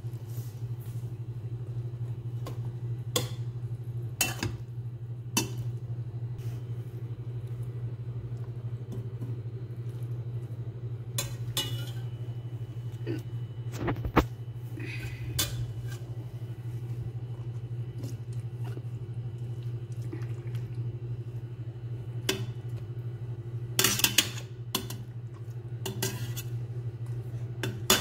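Metal slotted spoon clinking and scraping against a stainless steel pot while stirring a thick stew, in irregular knocks with a short cluster near the end, over a steady low hum.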